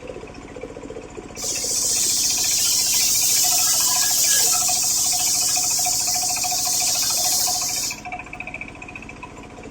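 Homemade circular saw spinning, then cutting through coconut-palm wood for about six and a half seconds from a second and a half in. The cut is a loud, high hiss that stops abruptly, leaving the blade running free.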